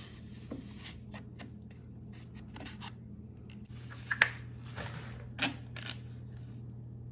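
Scissors snipping plastic packing ties and foam wrap off a bike frame: scattered clicks and short rustles, with one sharp click about four seconds in, over a steady low hum.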